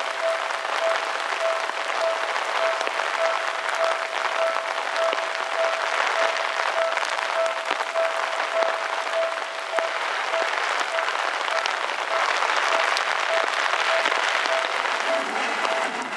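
Railway level-crossing warning bell ringing in a steady electronic ding, about one and a half to two strikes a second, over the hiss of heavy rain. Near the end the rumble of an approaching Seibu 301 series electric train comes in as it reaches the crossing.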